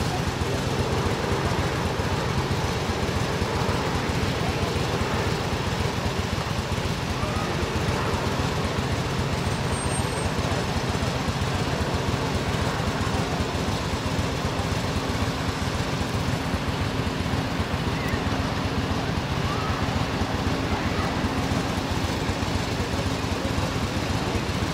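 Steady drone of emergency vehicle engines idling: a constant low hum with a steady tone in it, unchanging.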